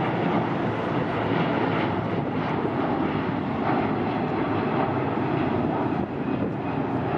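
Jet aircraft engine noise: a steady, even rushing roar with no change in level.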